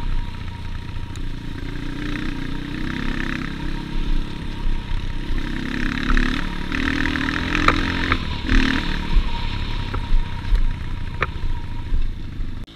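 Off-road trail motorcycle engine running as it rides over a rough dirt trail, with a few sharp clattering knocks from the bike.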